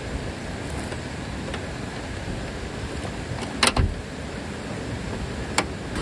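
A river rushing steadily over its bed. A couple of sharp knocks sound a little past halfway, and one more near the end.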